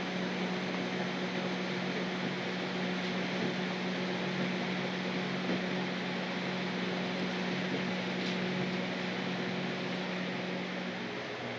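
Microwave oven running with a steady hum over an even rushing noise. The hum drops out near the end while the rushing goes on.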